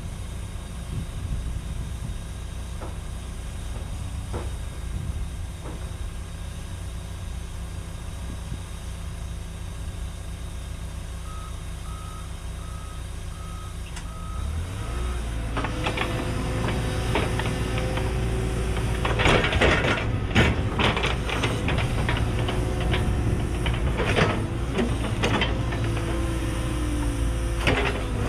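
Cat 314E excavator's diesel idling, with a short run of about six alarm beeps about twelve seconds in. About halfway through, the engine revs up under load and the hydraulics whine as the ripper shank tears into hard bedrock, with repeated sharp cracks and scraping of breaking rock.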